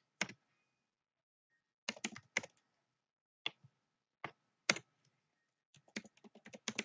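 Computer keyboard keystrokes: a few separate key presses spaced out, then a quick run of typing near the end.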